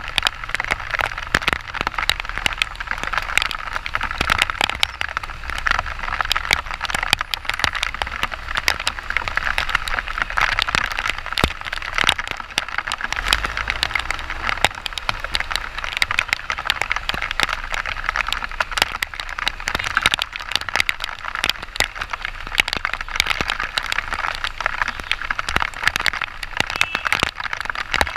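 Heavy rain striking the camera close to the microphone: a dense, steady crackle of drop hits over a rain hiss, with a faint low rumble underneath.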